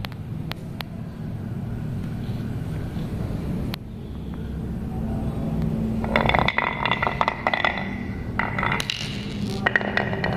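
A glass marble rolling down a wooden marble run with a low rumble. From about six seconds in it rattles and clicks as it runs through the carved S-curve grooves of a pine board.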